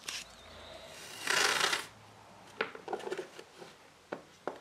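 Masking tape being pulled off its roll with a loud rasp about a second in, then a few short sharp clicks and taps as the tape and roll are handled.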